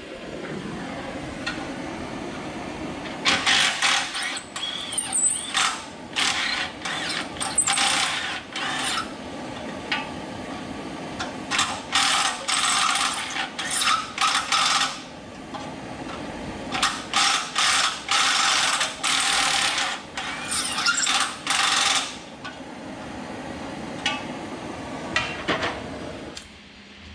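Ratchet wrench working fasteners in repeated bursts of ratcheting, in four spells separated by short pauses.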